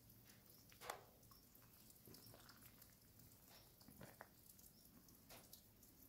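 Near silence, with a few faint scattered ticks and taps, the clearest about a second in.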